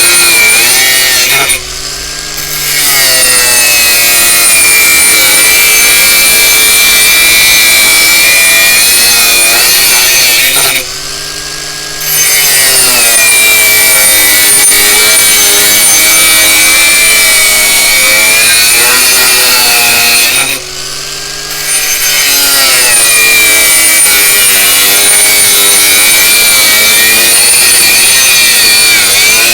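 Parkside PWSAP 20-Li C3 cordless brushless angle grinder cutting or grinding under load, a loud rasping run with a high whine that wavers as the load changes. Three times it eases off for about a second, going quieter, before bearing back in.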